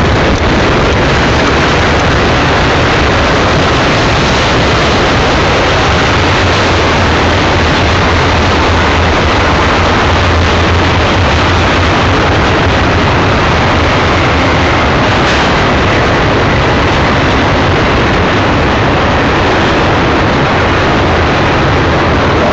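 Double-stack container train rolling past downgrade: a loud, steady rumble and rush of steel wheels on rail from the passing well cars.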